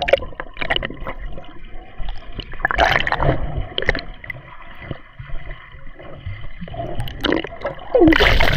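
Seawater splashing and gurgling close around the camera, in irregular surges with short splashy bursts, the loudest about three seconds in and again near the end.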